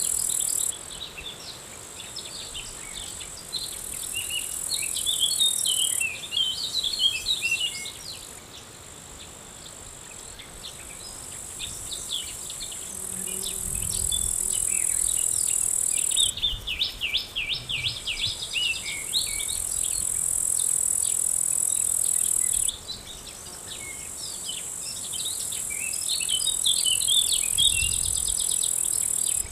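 Outdoor summer soundscape: a steady high-pitched chirring of insects that switches on and off abruptly every few seconds, with many small birds chirping and twittering throughout. A short low hum comes in about halfway through.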